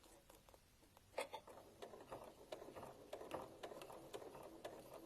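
Faint, irregular light clicks and taps with a soft rustle, as quilting fabric is handled and folded at the sewing machine.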